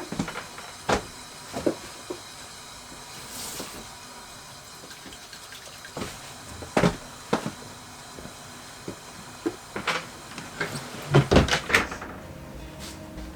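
Scattered sharp clicks and knocks of objects being handled, with a quick cluster of knocks near the end, over a faint steady background hiss.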